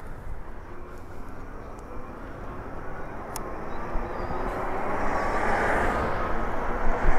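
Wind buffeting and tyre noise picked up on an e-bike rider's chest-mounted camera while riding: a rushing sound with a faint hum that grows steadily louder over the second half.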